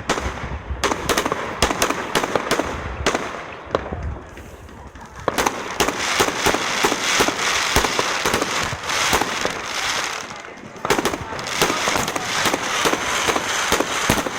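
Fireworks going off: a run of sharp bangs, then from about five seconds in a dense crackling mixed with bangs. The crackling breaks off briefly near ten seconds and then starts again.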